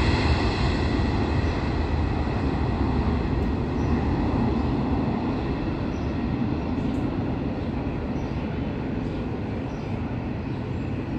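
Boeing 747-400 freighter's four jet engines at takeoff power on the takeoff roll: a steady, loud roar with a high engine whine that fades after the first few seconds, the whole sound slowly getting quieter as the aircraft moves away.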